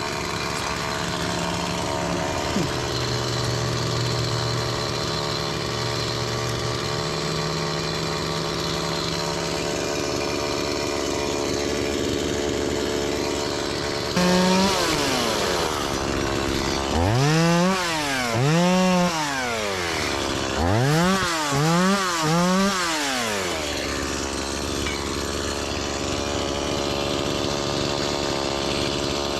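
Gas chainsaw, fitted with a new sharp chain, running steadily, then revved up and down in about five quick throttle bursts in the middle, with its pitch rising and falling each time, before it settles back to a steady run.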